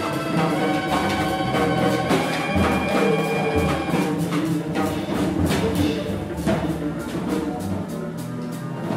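Small band playing dense, freely moving music live: violin, saxophone and double bass holding tones over a drum kit struck busily throughout.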